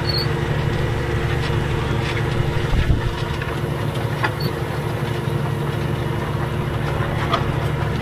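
Tractor engine running steadily under load while pulling a mounted reversible plough through the soil, with a single low thump about three seconds in.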